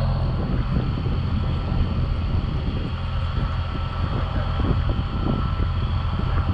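Heavy lorry's diesel engine running steadily while it powers the truck-mounted crane lifting a load, with wind buffeting the microphone.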